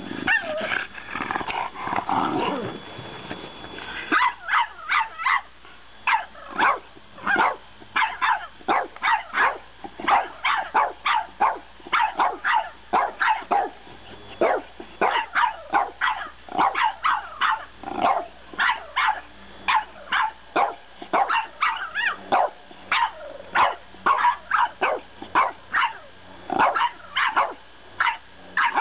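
French Bulldogs squabbling: a few seconds of growling and whining, then a long run of short, high-pitched yappy barks, two or three a second.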